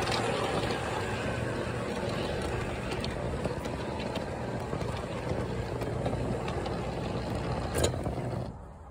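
Garden-railway model locomotive running on its outdoor track, heard from a phone riding on its roof: a steady rolling rumble of wheels on rail with a low motor hum. A sharp clack comes near the end, then the noise drops off suddenly as the train slows to a stop.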